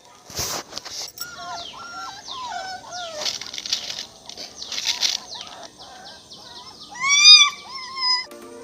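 Newborn puppies crying: a run of short, high whimpers and squeals that bend up and down in pitch, the loudest cry about seven seconds in. A few brief noisy bursts come and go among them.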